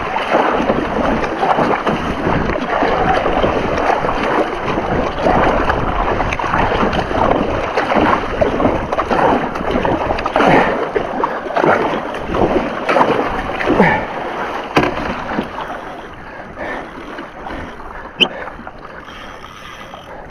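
Kayak paddle strokes splashing through choppy sea water, mixed with wind on the microphone. The strokes die down about three-quarters of the way through and it goes quieter, with a single sharp click near the end.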